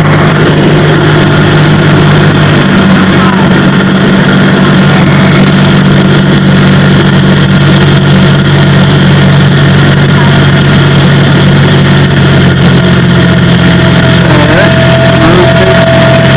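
Cessna 172R's four-cylinder Lycoming engine and propeller droning steadily, heard loud inside the cockpit; the drone's tone shifts slightly about three seconds in. A steady higher tone joins it in the last few seconds.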